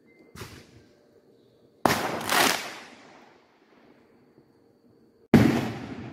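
Fireworks exploding overhead: a faint pop, then a loud bang about two seconds in with a second burst half a second later, and another loud bang near the end. Each bang is followed by a rumbling echo that dies away.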